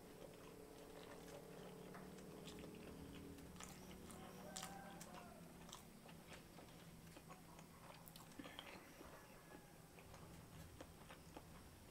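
Faint close-miked chewing of a mouthful of rice and semur jengkol, with small wet mouth clicks and light crunches scattered throughout.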